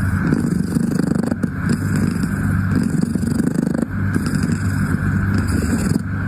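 Domestic cat purring loudly right at the microphone, a continuous motor-like rumble that dips briefly about every two and a half seconds as it breathes.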